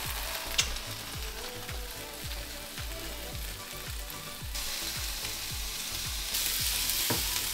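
Chicken, mushrooms and vegetables frying in a skillet over a gas burner, a steady sizzle that gets louder about four and a half seconds in as more vegetables go into the pan. A soft, steady beat of background music runs underneath.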